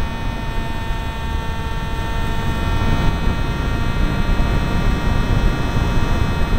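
Zagi v4 RC flying wing in flight, heard from on board: a steady whine of the motor and propeller as a set of fixed high tones, over heavy wind buffeting on the microphone. The higher tones soften from about three seconds in.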